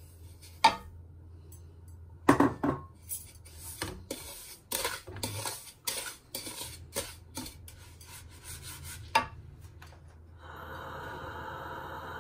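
A wooden spatula and a ceramic bowl knock and scrape against a stainless steel pan as granulated sugar is tipped onto melted butter: a string of sharp knocks, several close together about two seconds in. Near the end it gives way to a steady, even rustle as the sugar is stirred in the pan.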